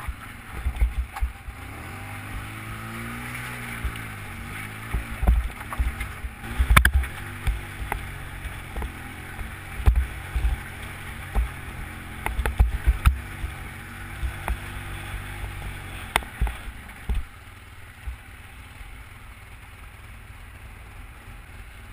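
Polaris Sportsman ATV engine running as it is ridden, its pitch rising and falling with the throttle, with frequent low thumps and knocks. It eases to a quieter, steadier run for the last few seconds.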